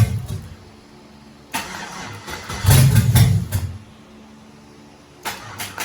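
LS V8 engine being cranked on the key by its starter in two bursts, the first about two seconds long and the second starting near the end, without settling into a steady run.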